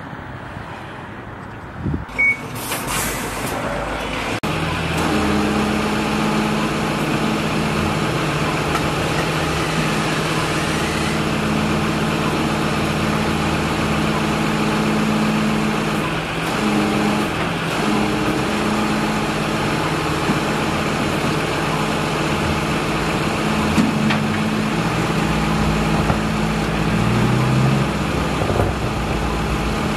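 A couple of sharp knocks and a short hiss about two seconds in, then a flatbed tow truck's engine running steadily, its pitch rising briefly near the end.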